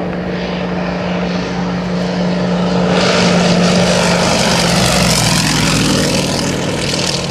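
Single-engine propeller plane flying low on approach with its gear down, the engine and propeller drone swelling as it passes close, then dropping slightly in pitch and easing off as it goes by.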